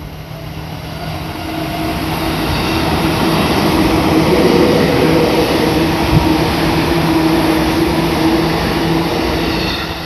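Yellow Seibu Railway electric commuter train passing close by over a level crossing. Its wheel and running noise swells over the first few seconds and holds loud, with one sharp clack about six seconds in, then eases near the end.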